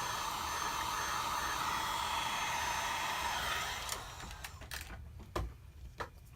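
Hot-air blower running steadily to warm the phone and soften the battery adhesive, switched off about four seconds in; a few light clicks follow.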